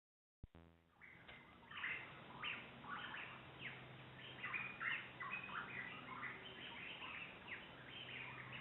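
A flock of birds chirping: many short, downward-sweeping calls, several a second and overlapping, starting about a second in after a brief silence and a click.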